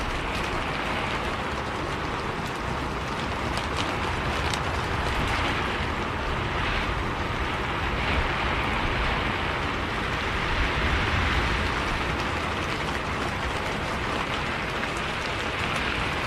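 Steady rain hissing with a low, continuous vehicle rumble underneath, as heard riding in a bus, with scattered raindrop ticks.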